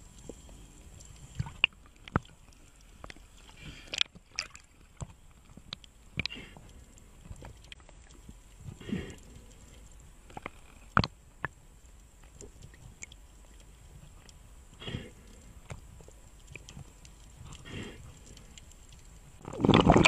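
Shallow seawater sloshing and splashing in short bursts, mixed with scattered sharp clicks and knocks, and a louder burst near the end.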